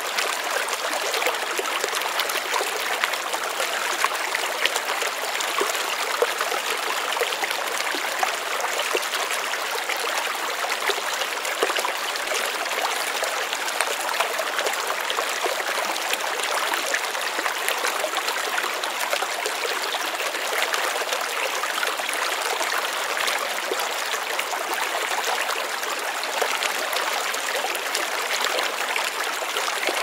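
Shallow stream flowing and babbling over rocks and pebbles, a steady rush with fine trickling and splashing detail.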